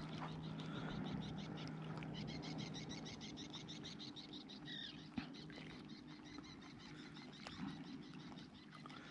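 Faint, quick and even ticking of a spinning reel being cranked as a spoon lure is retrieved, with a short descending chirp about halfway through and a low steady hum underneath.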